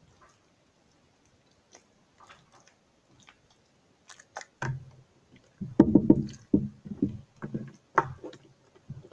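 Jiggly slime being squeezed and worked by hand: a few faint clicks at first, then from about halfway a run of wet squelching and popping.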